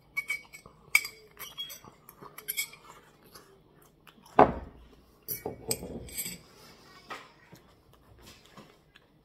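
Metal fork clinking and scraping against a small bowl in quick, irregular taps as pieces of food are picked up, with one louder knock about four and a half seconds in.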